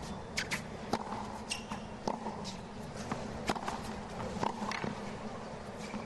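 Tennis rally on a hard court: sharp racket strikes and ball bounces at irregular intervals, roughly every half second, over a steady crowd murmur.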